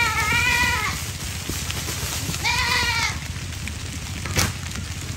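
Young goat giving distress bleats while a Komodo dragon chases it: two long, wavering bleats, one at the start and one about two and a half seconds in. A sharp click comes near the end.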